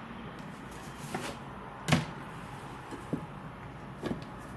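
A kitchen knife cutting on a chopping board: a few separate, unevenly spaced knocks, the second the loudest.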